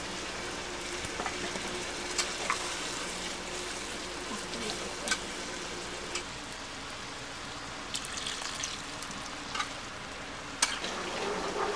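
Chicken and potato curry sizzling in a metal kadai while a metal spatula stirs it, with scattered clicks and scrapes of the spatula against the pan.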